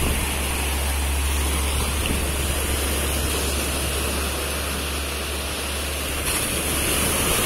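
Sea surf washing onto the beach, with a steady low rumble of wind buffeting the microphone that drops away near the end.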